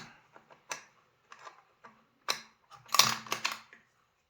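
Small metal parts clicking and tapping as a nut is fumbled onto a bolt on a nail gun's hanger bracket, with scattered light clicks and a burst of louder clicks about three seconds in.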